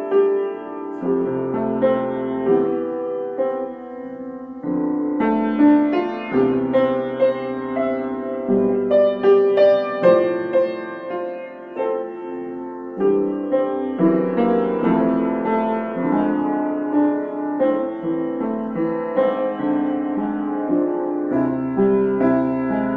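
Solo piano playing a composed piece: chords in the low and middle range with melody notes above, each note struck and left ringing.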